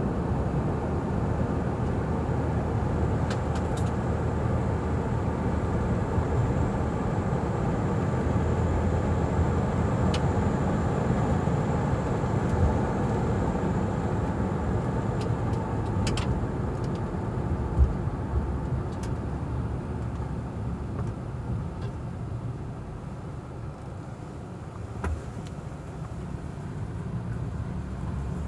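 Inside a car driving slowly on a paved road: steady engine and tyre rumble, with a few scattered light clicks.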